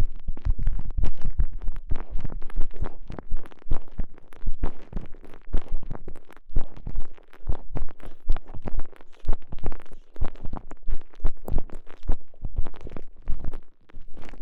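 Close-up squishing and crackling of a TENGA Egg's soft stretchy sleeve rubbed and squeezed around a microphone inserted inside it: dense, irregular strokes several times a second, easing briefly about six seconds in.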